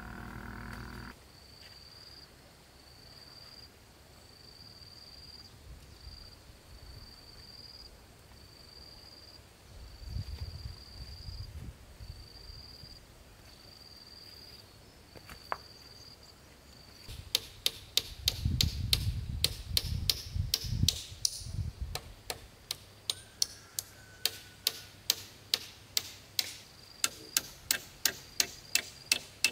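A hammer striking the bamboo roof frame, nailing a rafter to a post. The blows start a little over halfway through and keep an even pace of about two a second. Before the hammering, a faint high chirp repeats about once a second.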